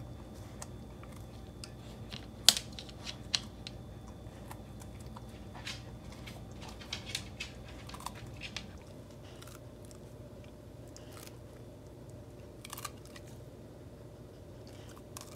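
A Samoyed chewing and mouthing a soft green bean, with irregular faint clicks of teeth and mouth. The sharpest click comes about two and a half seconds in.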